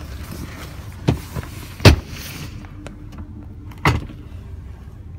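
Four sharp knocks over a steady low rumble, the loudest a little under two seconds in and another near four seconds.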